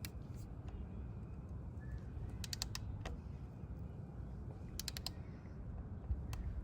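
Ratchet wrench clicking in short bursts of a few clicks each, tightening the Harley's primary chain case drain plug to its 14–21 ft-lb torque spec.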